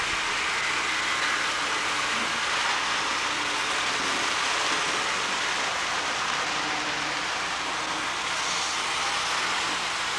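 HO scale model trains running on the layout: a steady whirring hiss of small electric locomotive motors and metal wheels on the track.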